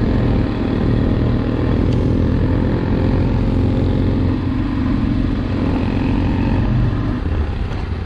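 Motorcycle engine running steadily while riding, heard from on board the bike, with wind noise over it.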